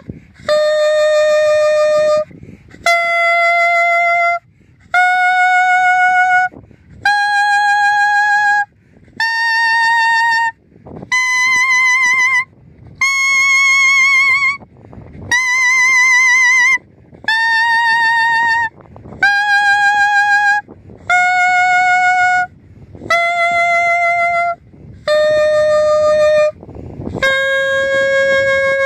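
Clarinet playing a D major scale up an octave and back down, one held note per step, each about a second and a half long with a short breath between. The highest notes waver slightly.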